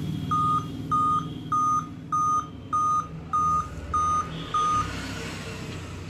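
Dell Vostro 2520 laptop giving its power-on beep code: eight short beeps at one steady pitch, evenly spaced a little over half a second apart, while the screen stays blank. The eight-beep code is one that the technician ties to a faulty screen, processor or display cable.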